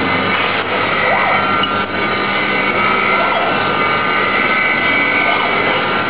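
Honey sachet packaging machine running, a steady mechanical hum with high, steady tones over it.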